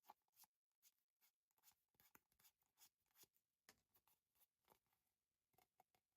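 Near silence with faint, irregular light scratching and small clicks from tools and parts being handled on a work surface.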